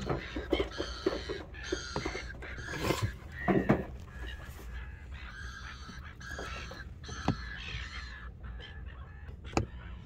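A flock of silver gulls calling over and over in a squabbling chorus, heard from inside a car through the windscreen. Several sharp knocks come as the birds land and jostle on the bonnet, the loudest a few seconds in.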